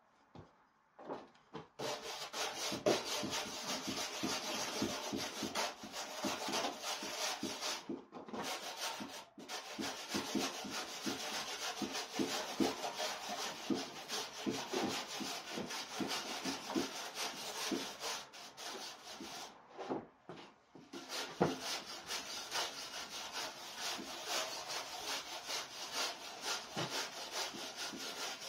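Hand tool scrubbing rapidly back and forth along the charred surface of a burned wooden board, brushing off the char. It starts about two seconds in and pauses briefly a few times.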